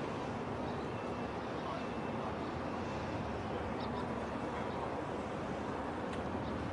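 Steady harbour background noise: a continuous low rumble and hiss, with a few faint short high tones.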